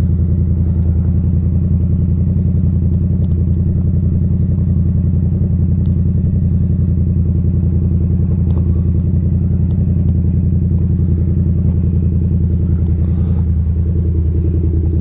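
Motorcycle engine idling steadily with a deep, even hum.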